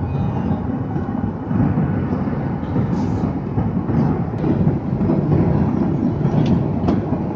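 Jet airliner cabin noise at cruise: a steady, dense rumble from the engines and the airflow past the fuselage.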